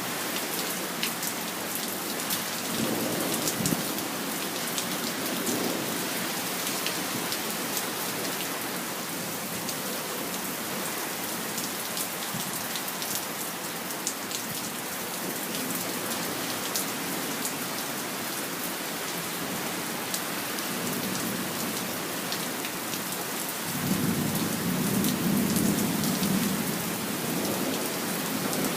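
Steady rain falling, with individual drops pattering against a surface. Low rumbles of thunder come through about three seconds in and again, louder and for several seconds, near the end.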